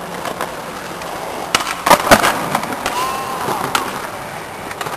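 Skateboard wheels rolling on concrete, broken by sharp clacks of the board striking the ground, the loudest cluster about two seconds in and a few lighter ones around it.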